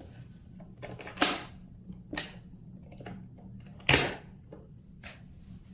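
A door being closed and its deadbolt locked: a few small clicks and two louder clunks, one about a second in and one about four seconds in.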